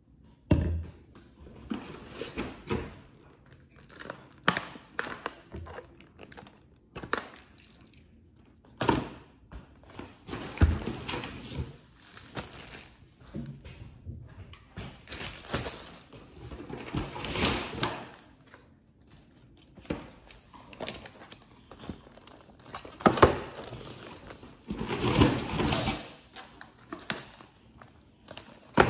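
Groceries being handled and set down on a countertop: plastic packaging crinkling and rustling, with irregular thunks as bottles, a bread bag and plastic clamshell containers are put down.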